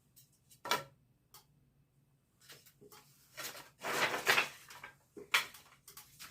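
Wooden beehive frame parts being handled and fitted together. There are a few light knocks and clacks, a longer scraping rustle in the middle, and a sharper knock near the end.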